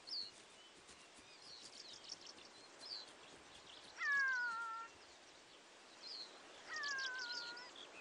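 Wild birds chirping and twittering steadily, with two louder, falling whistled calls of about a second each, one near the middle and one near the end.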